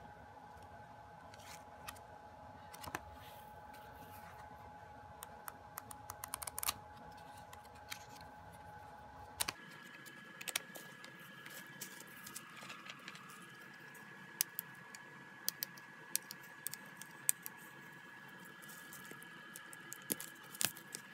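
Light handling sounds of a music album and its photocards: pages flipping, card and paper tapping and clicking, with rustles against bubble wrap. These are scattered short ticks over a faint steady hum that abruptly changes pitch about nine and a half seconds in.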